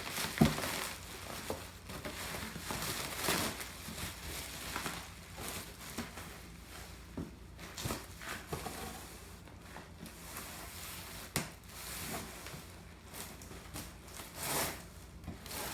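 Packaging being handled while unboxing a machine: irregular crinkling and tearing of cardboard and packing material, with scattered knocks.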